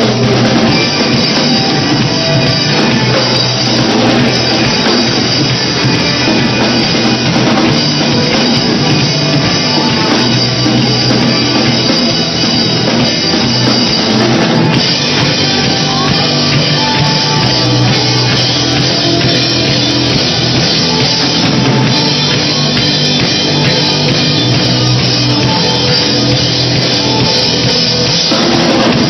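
Live rock band playing loud and steady: drum kit, electric bass and electric guitars, heard from the crowd through a phone's microphone.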